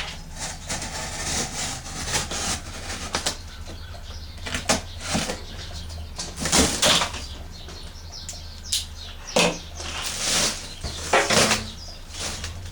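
Packaging being handled: rustling and swishing plastic and cardboard with knocks and scrapes in irregular bursts, over a steady low hum.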